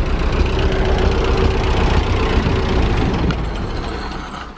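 1930 Ford Model AA truck's four-cylinder flathead engine idling through its short exhaust, then fading and dying away near the end as it stalls. The owner's first thought is that it has run out of fuel.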